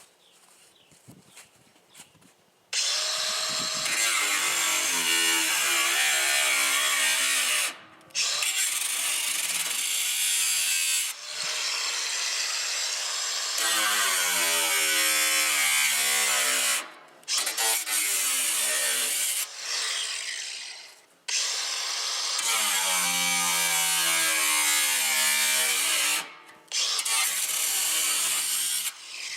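Ryobi 18V cordless 4-1/2 in. angle grinder cutting slots into a metal burn barrel, in about six passes of a few seconds each with short pauses between them. Its pitch sags and recovers as the wheel bogs under load in the cut.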